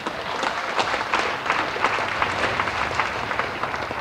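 Theatre audience applauding, many people clapping at once.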